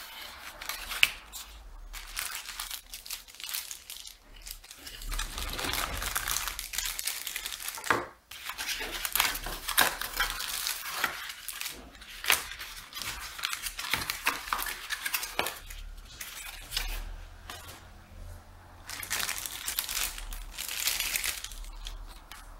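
Unboxing handling noise: plastic packaging bags crinkling and rustling, with cardboard scraping and sharp clicks and knocks of small plastic parts. There is one loud click about a second in. The rustling comes in two long bouts, the second near the end.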